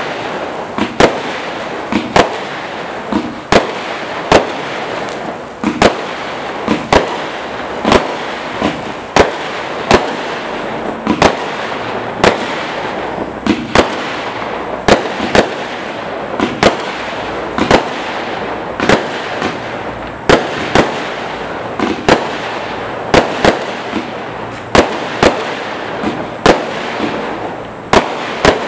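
Black Cat Ascension compound firework cake firing a continuous string of shots: sharp bangs one to two a second, somewhat irregular, over a steady hiss of burning effects.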